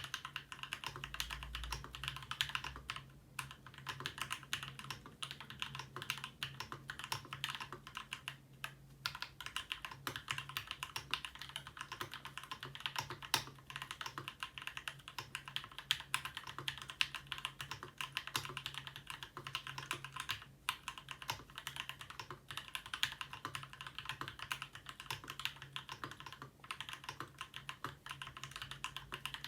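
Continuous fast typing on a Ramaworks M60-A seq2 60% mechanical keyboard with Gateron Black Ink linear switches. The switches are lubed with Krytox 205g0 and filmed, and the case has an internal dampener. The keystrokes make a dense, even run of clicks with no pauses.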